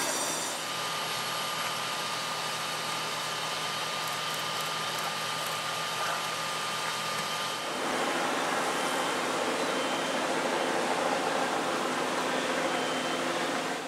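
Fire apparatus engines running steadily at idle, a continuous mechanical drone with a few steady tones that changes character about half a second in and again about eight seconds in.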